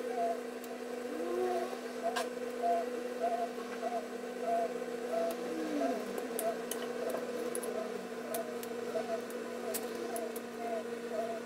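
A steady low hum with a regular warble runs throughout, with a few light clicks of a knife on a plastic cutting board as chicken thighs are trimmed.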